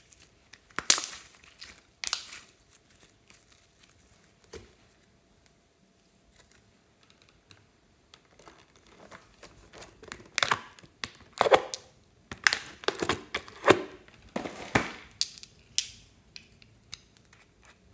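Glossy slime being stretched and pulled, with two loud sticky pops about one and two seconds in. After a lull comes a run of crinkling and clicking from a clear plastic blister tray as small mermaid-shaped plastic cosmetic pots are handled and pried out.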